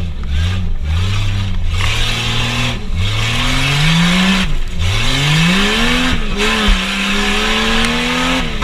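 Tough-truck engine revving hard, its pitch climbing and dropping over and over as the truck accelerates and lets off through the obstacle course, with a steady hiss behind it.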